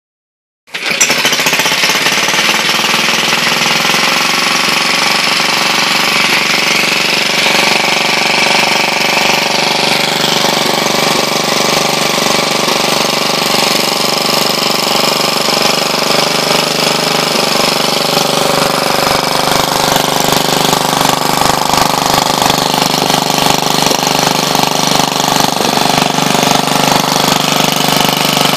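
Vintage Briggs & Stratton single-cylinder engine running steadily with a rapid, even firing rhythm; it comes in suddenly about a second in.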